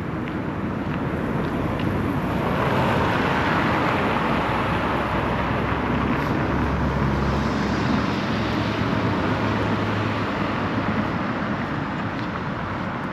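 A motor vehicle driving past on the street: tyre and engine noise growing louder over the first few seconds, holding, then fading toward the end.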